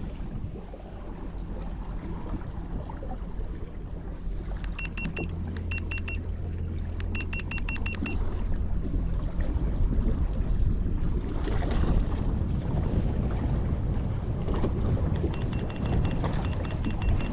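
Steady low rumble of wind and water around a small fishing boat, with runs of short, high electronic beeps from boat electronics, a few in quick succession about a third of the way in and again near the end.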